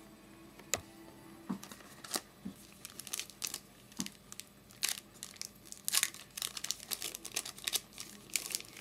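Crinkling and tearing of a trading card pack's wrapper as it is torn open, in irregular crackles starting about one and a half seconds in.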